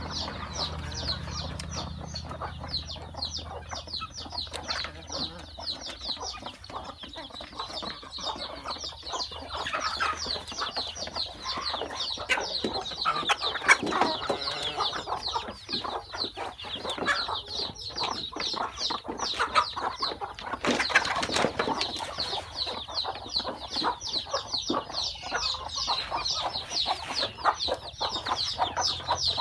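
Many chicks peeping continuously, a dense stream of high, quick downward-sliding cheeps, with hens clucking underneath. A short loud noisy burst about three quarters of the way through.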